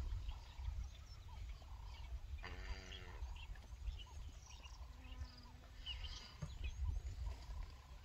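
Scattered small bird chirps and whistles over a constant low rumble. Two short pitched animal calls sound about two and a half and five seconds in, and a few faint crunching clicks come near the end.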